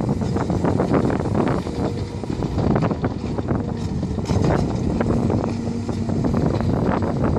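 Heavy diesel earthmoving machinery running: a Caterpillar 345 hydraulic excavator working beside an idling dump truck, with wind buffeting the microphone. A faint steady hum joins about five seconds in as the excavator swings its loaded bucket.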